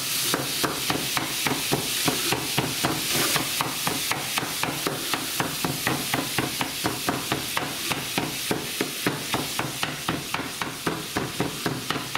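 A meat chopper tool striking over and over into ground beef and against a frying pan as the meat is broken up for browning, at about four strikes a second, with the meat sizzling underneath.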